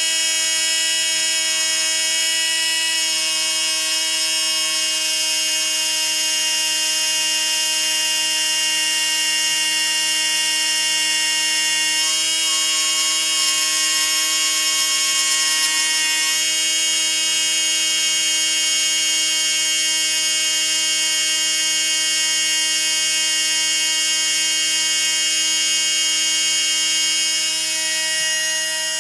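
Hudy comm lathe's small electric drive motor spinning a Tokyo Marui airsoft motor armature at speed, a steady high whine with a few slight shifts in tone. Its cutting tool is truing up the worn copper commutator.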